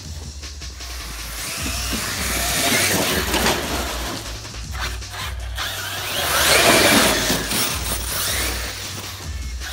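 Arrma Kraton 6S brushless RC monster truck running flat out on a dirt path, its motor whining and its tyres throwing up gravel. It gets louder about three seconds in and again around seven seconds as it passes.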